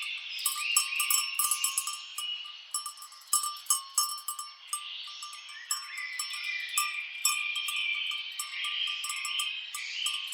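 Bells on grazing cattle clinking in a quick, irregular patter, with birds chirping over them.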